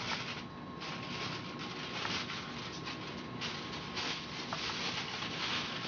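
Aluminium foil crinkling and rustling in uneven stretches as it is peeled back off a metal baking pan.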